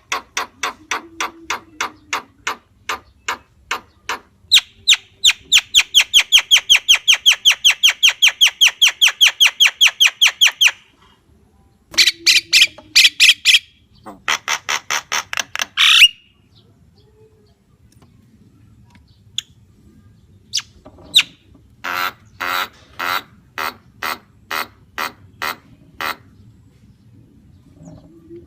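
Javan myna calling: long runs of quickly repeated sharp, squawking notes, at their loudest in a rapid series of about five a second, then shorter bursts broken by pauses and a slower series of notes near the end.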